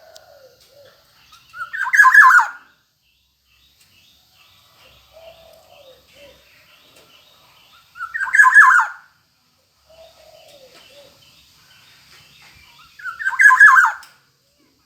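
Black-naped oriole calling: three loud, harsh calls of under a second each, about five to six seconds apart. Faint, short falling notes sound between them.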